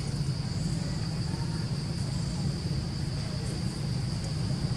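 Steady, high-pitched insect chorus, like crickets or cicadas, with a constant low rumble underneath.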